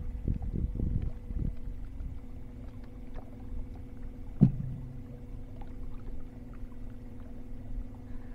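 A boat motor hums steadily while trolling, with low water and wind noise on the boat. One sharp knock about four and a half seconds in.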